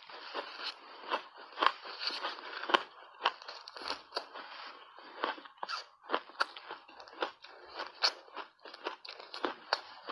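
Refrozen ice chunks coated in matcha powder being bitten and chewed: a dense run of sharp, crisp cracks, several a second, as the ice breaks and grinds between the teeth.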